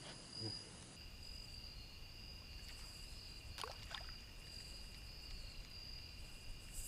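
Steady high-pitched chorus of crickets, two unbroken trilling tones over a low rumble, with a few faint clicks around the middle.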